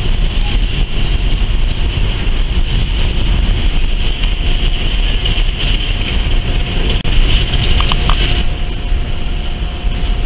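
Steady rumble of a long BNSF coal train's hopper cars rolling slowly along the rails, the train slowing down, with wind noise on the microphone.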